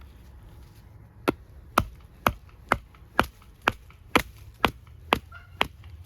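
Wooden baton striking the spine of a handmade bushcraft knife, about ten sharp knocks at a steady two a second, starting about a second in: batoning the blade through a hard, knotty log.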